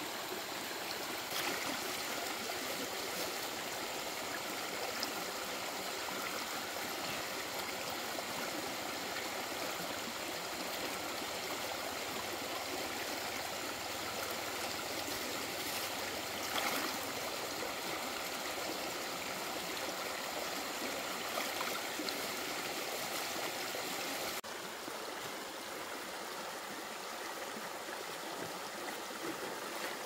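Stream water running steadily, a continuous babble of flowing water, with a couple of brief faint knocks; the level drops suddenly and slightly about 24 seconds in.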